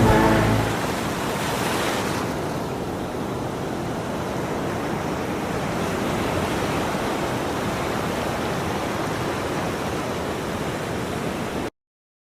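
Sea waves washing on a shore: a steady surf noise that cuts off abruptly near the end.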